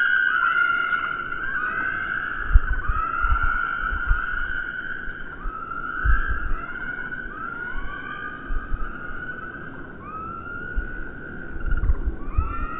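Slowed-down bird calls: many overlapping calls, each a short gliding tone that rises and falls, with scattered low thumps beneath.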